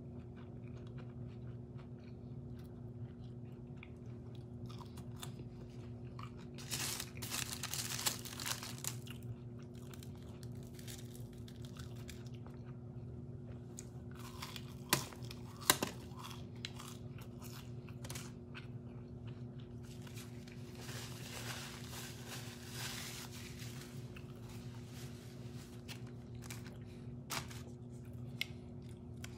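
Close-miked chewing and crunching of McDonald's fast food, with clusters of louder crunchy bites about a quarter of the way in and again past the middle, and a few sharp clicks in between, over a steady low hum.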